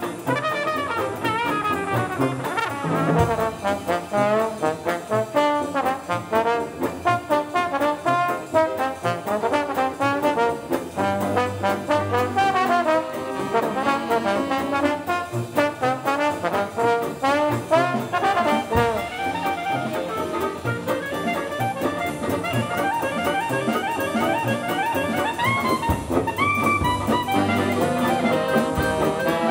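Instrumental background music with brass instruments in a jazzy style, playing a busy run of quick notes without a break.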